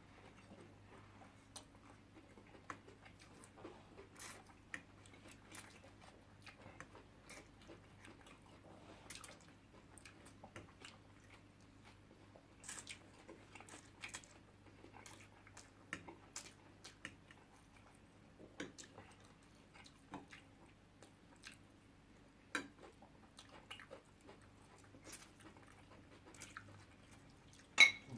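Close-miked eating: irregular soft smacks, clicks and chewing of people eating spaghetti and fish. A faint steady low hum runs underneath, and there is one sharper click near the end.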